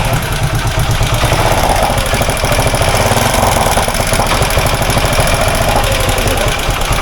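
Suzuki Gixxer SF single-cylinder engine running with a loud, rapid, steady clatter from the top end. The mechanic calls it a very bad engine sound condition and puts it down to running with no engine oil, which damaged the cam rockers, and to a loose timing chain on a tampered tensioner.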